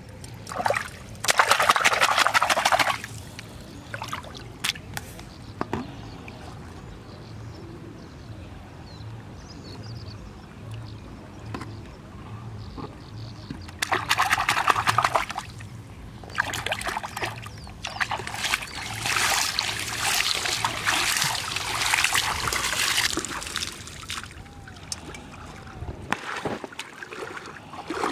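Shallow river water splashing and sloshing as hands rinse fish on a steel plate and work at bottle traps. It comes in bursts: a short one about a second in, another around fourteen seconds, and a longer run of splashing from about sixteen to twenty-three seconds.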